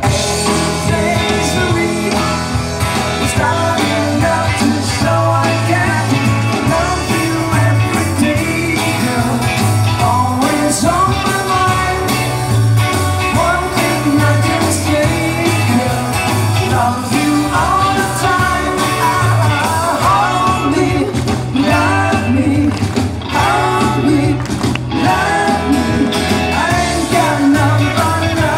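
Live rock band playing a song with singing: electric and acoustic guitars, bass guitar and drums.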